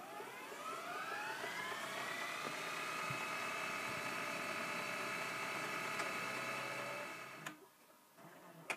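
A whirring, motor-like whine that rises in pitch as it spins up over about two seconds, then holds a steady pitch. It cuts off about seven and a half seconds in.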